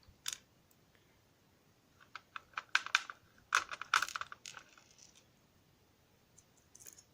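Sharp clicks and light clatter of small metal and plastic lock parts being handled while a DOM ix10 KG euro cylinder is taken apart: one click just after the start, a quick cluster of clicks about two to four and a half seconds in, and a few more near the end.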